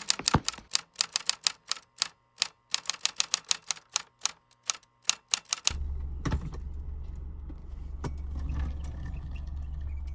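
A rapid, irregular run of sharp typewriter-like clicks, about five a second, lasting roughly six seconds. It then gives way to a steady low hum.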